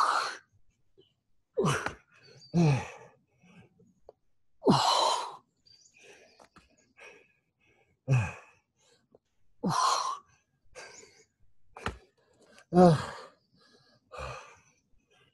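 A man breathing hard and grunting with effort during a high-intensity set of push-up bird dogs: short voiced grunts alternating with forceful breathy exhales, one every second or two.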